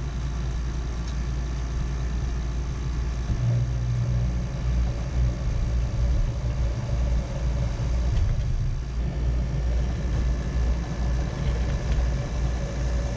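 Electric motor of a rod-wrapping machine spinning a fishing rod in its chuck while thread is wound on. A steady low hum with a whine starts about three seconds in and stops near the end, over a constant low background rumble.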